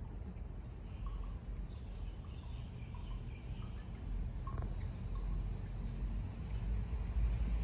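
Domestic cat purring as its chin is scratched, a low continuous rumble, with faint short chirps in the background.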